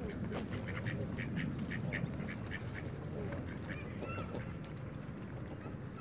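Mallards quacking and Canada geese honking, a quick run of short calls at about three a second, then a few longer honks about four seconds in, over a steady low rumble.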